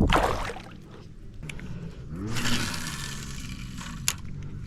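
Water splashing for about a second, a couple of seconds in: a smallmouth bass striking a Whopper Plopper topwater lure right as it lands.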